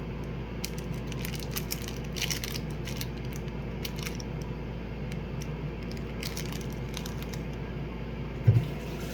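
Scattered crinkling and crunching from a packaged fruit bar being handled and crushed, over a steady low hum, with one loud thump near the end.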